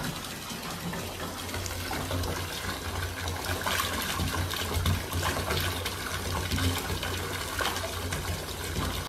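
Water pouring steadily from a bathtub mixer tap into a partly filled bath, with the stream broken up by a cat's paws.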